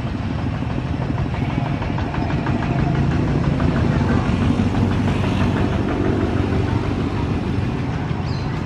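A motor engine running, a steady low rumble that swells through the middle, with a fast ticking on top for a few seconds.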